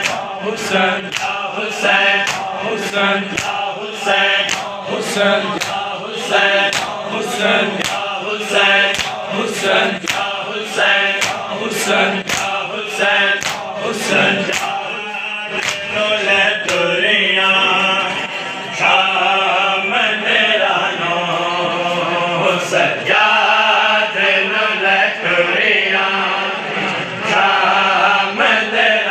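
Men chanting a noha together in unison, with sharp slaps of matam (hands striking bare chests) on a steady beat about twice a second. About halfway through the slaps mostly stop while the chanting goes on.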